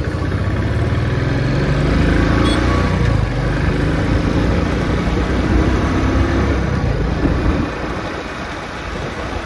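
Motorcycle engine pulling away and accelerating, its pitch rising and falling. About eight seconds in the engine note fades under wind and road noise.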